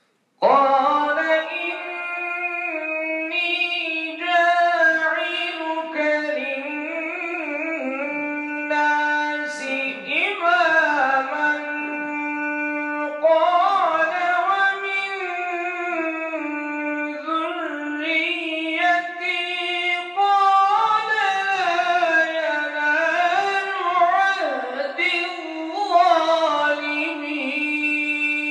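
A man reciting the Quran in melodic Arabic chant, drawn-out ornamented phrases with the voice winding up and down in pitch. It begins about half a second in.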